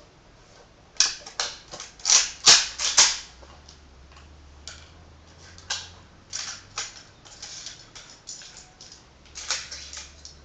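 A run of sharp metallic clicks and clacks from an INSAS rifle being worked by hand during immediate action for a rifle that fired once and then stopped. The clicks are loudest and quickest about two to three seconds in, then come singly and in pairs until near the end.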